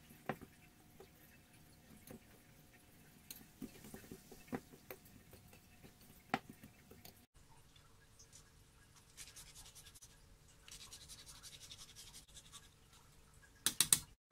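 Wire whisk stirring flour and brown sugar in a ceramic bowl, its wires clicking and tapping against the bowl, played at double speed. After that, a fine rasp grater scrapes a whole nutmeg in quick, even strokes, and a few loud clicks of the whisk on the bowl come near the end.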